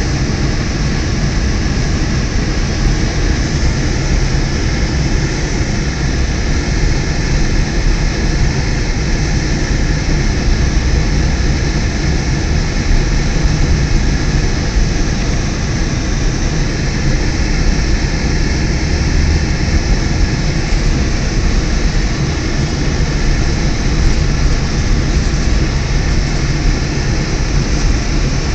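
Car driving on a snow-covered road, heard from inside the cabin: steady engine and road noise with a low hum.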